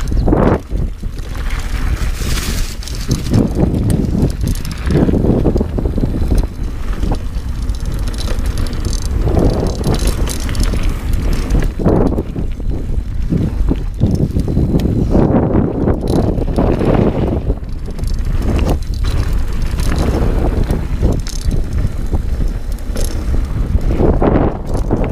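Dartmoor Primal 29er hardtail mountain bike riding a dirt singletrack: tyres rolling and rumbling over the trail, the bike knocking and rattling over bumps, with heavy wind noise on the camera's microphone.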